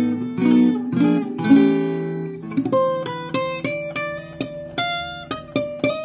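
1938 German Marius folk guitar played for a sound test. For about the first two and a half seconds it is strummed in ringing chords, then it switches to single notes picked one after another in a melody.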